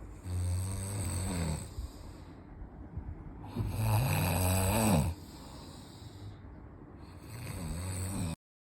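A sleeping person snoring: three long snores, each lasting one to one and a half seconds, spaced about three and a half seconds apart, with quieter breathing between them. The sound cuts off abruptly near the end.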